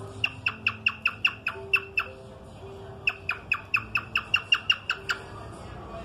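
Cockatiel calling in two quick runs of short, sharp, downward-sweeping chirps, about five a second, with a pause of about a second between the runs.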